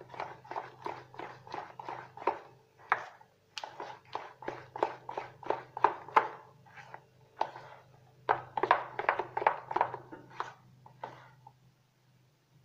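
Metal spoon stirring thick chocolate-biscuit cake batter in a stainless steel bowl, scraping and knocking against the bowl about three times a second as the baking powder is mixed in. The stirring stops shortly before the end.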